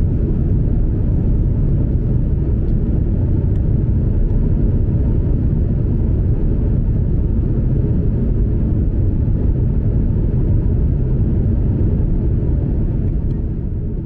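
Steady low rumble of a vehicle in motion, even and unbroken, easing off near the end.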